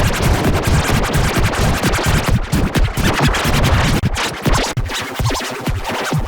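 Heavily effected, distorted electronic music with choppy, scratch-like stuttering and rapid clicks throughout. The bass drops away about four seconds in, leaving a thinner, higher sound.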